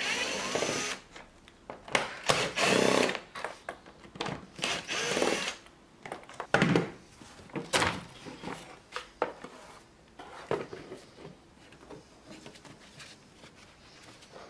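Cordless drill-driver whirring in short bursts as it undoes the airbox fasteners, one burst with a rising whine, followed by a couple of sharp plastic knocks as the airbox is worked loose and then quieter clicks of hand tools.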